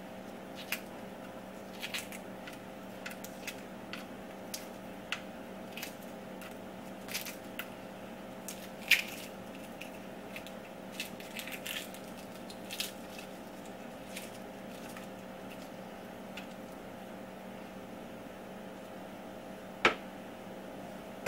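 Hard-boiled egg being peeled by hand: irregular small cracks and clicks of eggshell breaking away, with shell bits dropping on a wooden cutting board, over a steady background hum. Near the end, a single sharper knock as the peeled egg is set down on the board.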